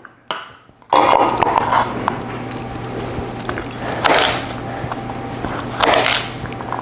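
Chef's knife slicing through a bundle of baby carrots and striking a plastic cutting board: three crunchy cuts about two seconds apart, with lighter knife taps between, over a steady low hum.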